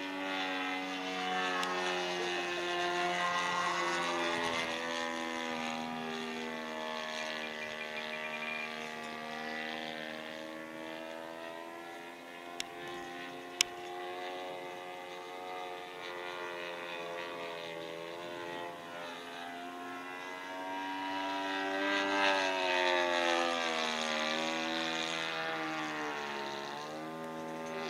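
Radio-controlled model airplane flying overhead, its motor and propeller droning at full power. The pitch and loudness swell and fade as it makes passes. Two sharp clicks come about halfway through.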